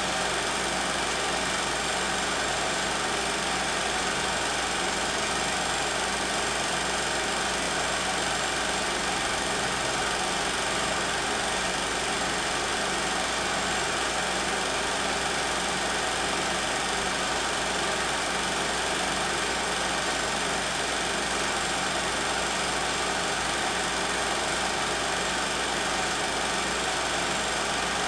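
16mm film projector running: a steady mechanical whir and clatter from the motor and the film moving through the gate, unchanging throughout.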